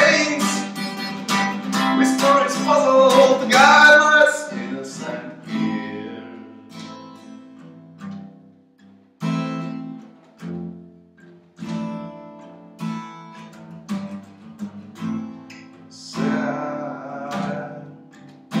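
Steel-string acoustic guitar strummed, loud and dense at first with a man singing over it. After about four seconds it thins to quieter single strokes, each left to ring out. The full strumming and voice come back briefly near the end.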